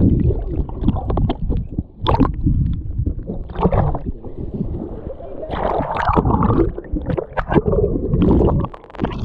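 Seawater sloshing, gurgling and splashing around a camera that dips under the surface and comes up again in rough surf. The sound is heard through the camera's waterproof housing, dull and rumbling while it is under water, with sharp splashes as it breaks the surface.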